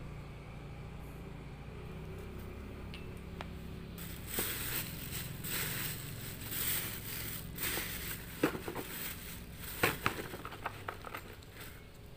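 Irregular crackling and scraping, with two sharp clicks, beginning about four seconds in over a steady low hum.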